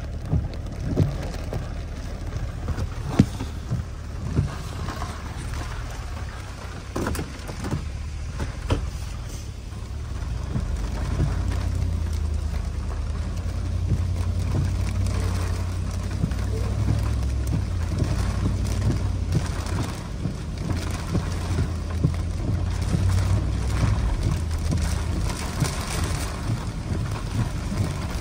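Rain falling, with single sharp drop knocks in the first ten seconds, then denser rain over a low steady rumble that grows louder from about ten seconds in.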